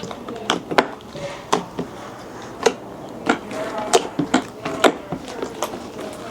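Glue-based butter slime being kneaded and squeezed by hand, giving irregular sharp clicking pops as air is pressed out of it.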